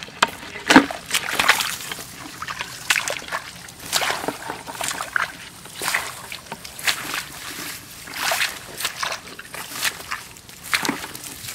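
Shallow rice-paddy water sloshing and splashing in irregular strokes, a few each second, as it is stirred and waded through.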